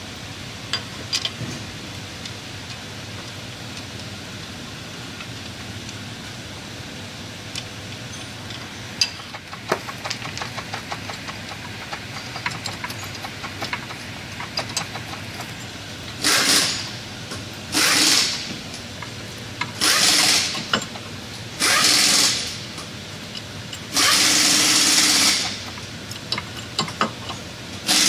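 Scattered light clicks and taps of hand tools, then, from about halfway through, five short bursts of a pneumatic impact wrench, each lasting about half a second to a second and a half, the longest near the end.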